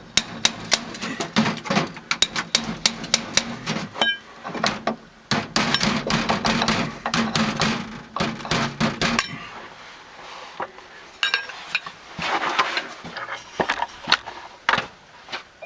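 A flat chisel working against siding to straighten a crooked section: a long run of sharp clicks and knocks, easing off for a few seconds partway through.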